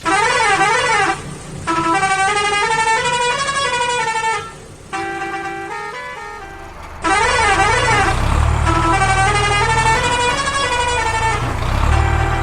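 Electronic sound effects from a toy construction vehicle: a warbling siren-like tone, then a short run of beeping melody notes. The sequence plays twice, the second time with a low engine rumble underneath.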